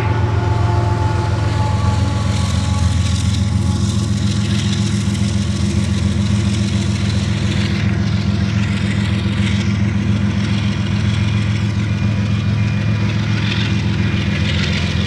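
Union Pacific diesel locomotives at the tail of a coal train running as they pass and pull away, a steady low engine drone with rail noise.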